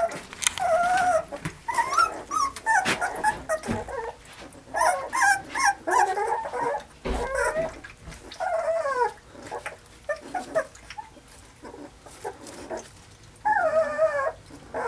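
Vizsla puppies whining and yipping in short, wavering, high-pitched calls, several in quick succession, while they lap puppy mush from a metal pan. There are small wet clicks between the calls.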